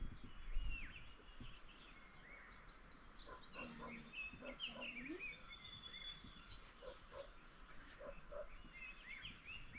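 Small birds chirping and twittering all around, many short high notes overlapping, with a few brief lower calls around the middle.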